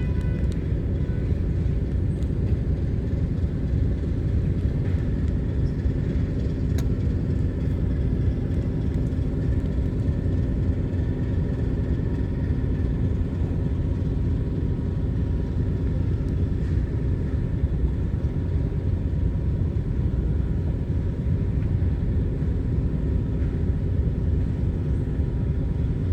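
Steady low rumble of wind buffeting the microphone outdoors, with a faint steady hum underneath.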